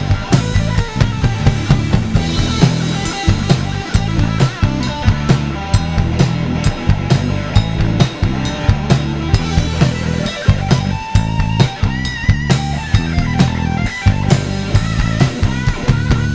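Live hard-rock band playing an instrumental break: an electric guitar lead with bent, wavering notes over a steady drum kit beat and bass.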